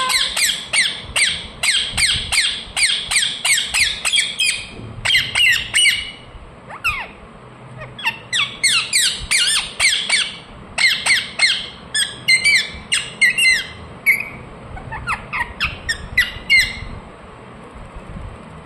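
Ringneck parrot chirping: rapid strings of short, sharp, high-pitched calls, several a second, in bursts separated by brief pauses, stopping shortly before the end.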